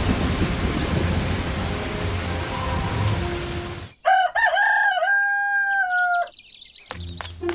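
Steady rain noise with a low rumble, cutting off suddenly about four seconds in. A rooster then crows once, a long call of about two seconds, followed by a brief run of short, high, falling notes.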